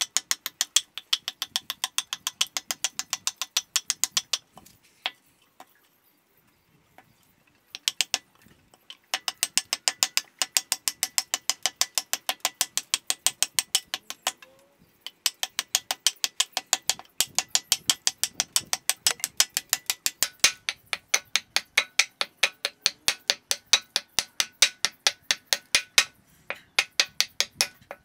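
Rapid, regular mechanical clicking, about three to four sharp clicks a second, stopping twice for a few seconds.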